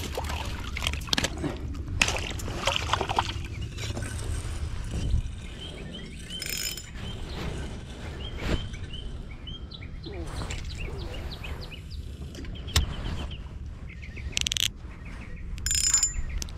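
Outdoor ambience dominated by wind rumbling on the microphone, with scattered clicks and knocks of the camera being handled and a few high bird chirps.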